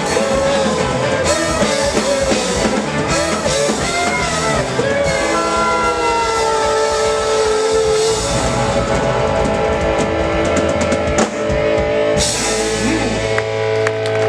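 Live rock band with horns and violin playing the closing bars of a swing-metal song: guitars, bass and drums under long held notes, ending on a sustained final chord with cymbal wash.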